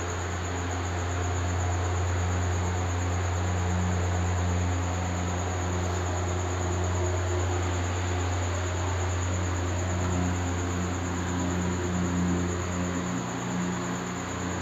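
Steady low hum under an even hiss, with a thin, high whine above it. Near the end, a duster rubs across a whiteboard.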